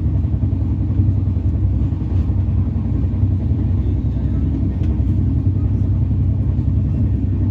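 Steady low rumble of a moving passenger train, with faint scattered clicks.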